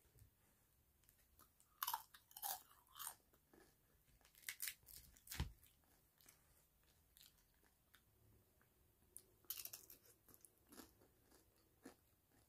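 Crisp fried tortilla tostada shell crackling and crunching as it is broken by hand and chewed, in several short clusters of sharp crackles. A single dull thump about five and a half seconds in.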